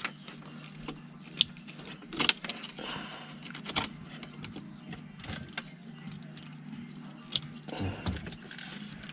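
Plastic plugs of a car-radio wiring harness being handled and pushed together, with scattered clicks and light rattles of connectors and wires, over a faint steady hum.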